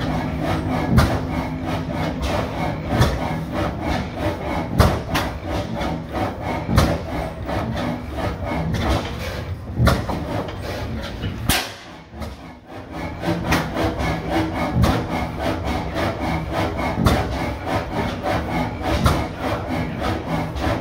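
50 hp Fairbanks Morse N stationary engine running, a continuous rhythmic clatter of its moving parts with a heavier beat about every two seconds.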